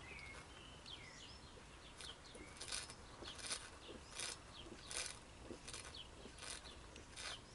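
Faint gulping as a man drinks beer straight from the bottle, a swallow about every 0.7 seconds after the first two seconds. Birds chirp faintly near the start.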